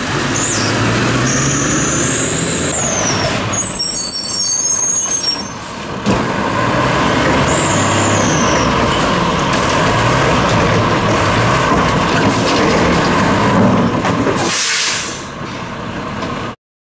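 Diesel engine of a Labrie Automizer side-loader garbage truck running, with high squealing tones that glide up and then down twice and a short hiss of air from the truck's air brakes near the end. The sound cuts off suddenly just before the end.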